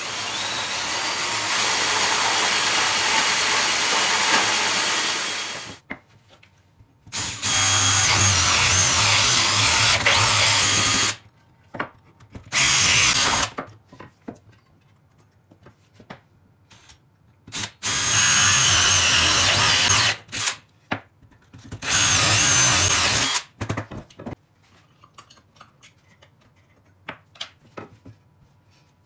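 DeWalt cordless drill driving a homemade wooden belt sander, running steadily for about six seconds. Then the same drill with a hole saw cuts discs from a pine board in four bursts of a few seconds each, with light knocks of wood being handled between them near the end.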